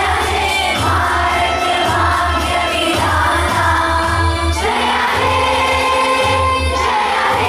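A group of children singing an Indian patriotic song in Hindi together, in phrases of long held notes.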